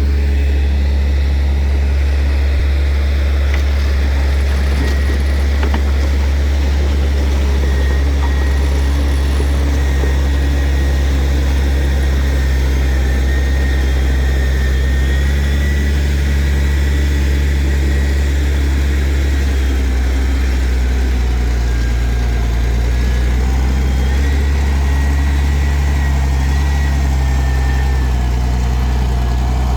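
Diesel engine of heavy earthmoving machinery running steadily with a deep hum, its note shifting slightly about halfway through, and a faint high whine over it.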